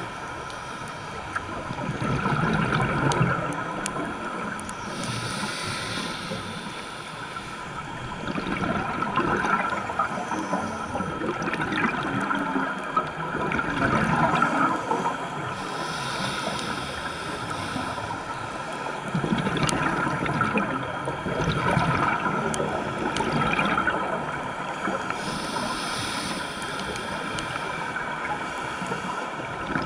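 Scuba diver's regulator breathing underwater, heard through the camera housing: a rush of exhaust bubbles comes and goes every few seconds, with the hiss of breaths drawn in between.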